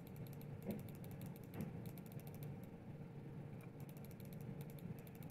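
Faint, rapid clicking of a computer's pointer button, pressed over and over at several clicks a second, with a short pause a little past halfway, while sculpting with a flatten brush. A faint steady hum lies underneath.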